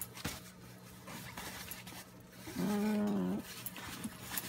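A dog and a puppy play-wrestling on a bed, with faint rustling and one drawn-out dog vocalization, steady in pitch and lasting under a second, about two and a half seconds in.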